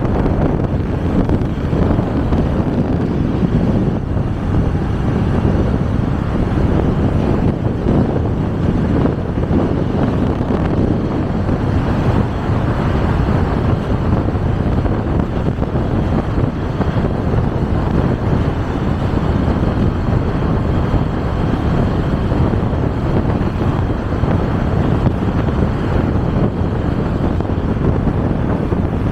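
Wind buffeting the microphone while riding, a steady low rushing noise with no breaks, mixed with the noise of the moving ride.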